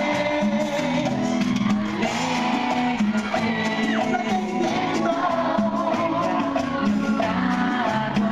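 Live cumbia band playing, with sung vocals and shouts over steady percussion and keyboard.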